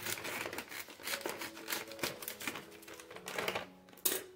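Scissors snipping through a plastic instant-noodle multipack bag, with the plastic crinkling as the bag is pulled open: a dense run of short sharp snips and crackles.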